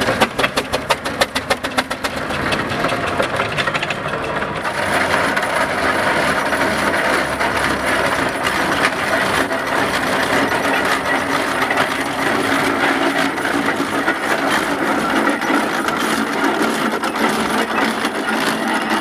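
Steam traction engines running as they drive past. First comes a quick, regular beat of about five a second, then a denser, steady mechanical clatter with hiss.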